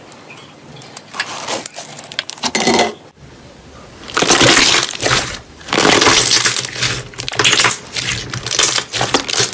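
Slime being squeezed and pressed by hand, making crackling, crunching pops and squelches that come in repeated swells about once a second after a quieter start.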